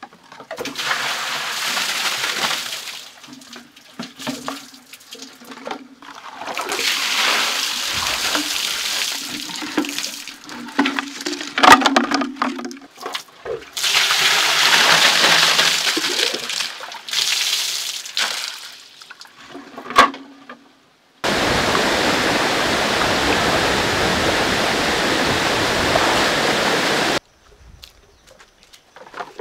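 Water poured from bamboo tubes into a ground inlet, splashing as it runs through a pipe and falls into a plastered pit pool. There are several separate pours with a sharp knock or two, then a steady, even rush of water for about six seconds near the end.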